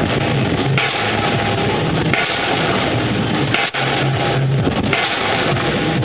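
Pile driver hammering a pile: four heavy hammer blows about one and a half seconds apart, over the steady loud noise of the running machinery.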